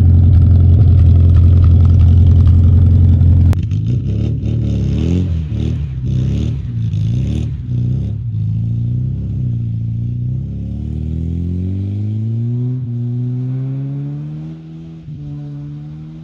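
Moskvich 2140's engine running loud and steady. After a cut it revs up and down, then the car pulls away with the engine note climbing through the gears and fading.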